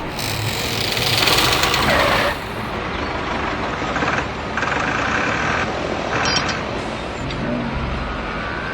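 Toy vehicle engine noise running steadily, with a few short higher-pitched tones partway through.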